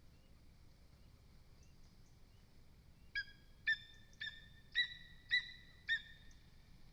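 Lesser spotted eagle calling: a series of six short, high calls about half a second apart, starting about three seconds in.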